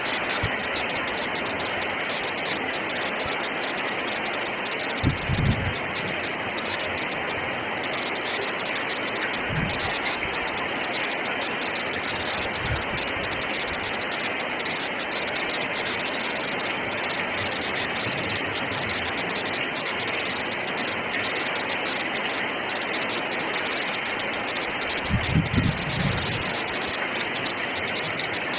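Very heavy rain pouring onto clay tile roofs, a steady dense hiss of water. Short low thumps come about five seconds in and again near the end.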